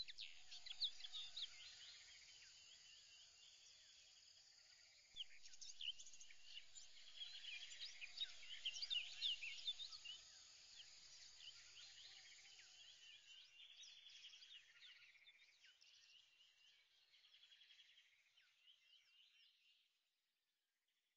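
Faint birdsong: many short, high chirps overlapping, busier from about five seconds in and fading out near the end.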